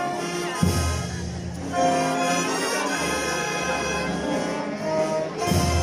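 Brass band playing a procession march: held brass chords changing about once a second, with a bass drum stroke about half a second in and another near the end.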